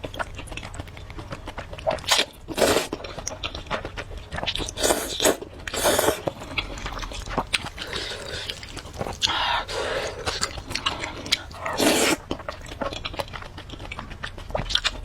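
A person eating spicy noodles and a chicken leg close to the microphone: irregular biting and chewing, with several louder bursts every few seconds.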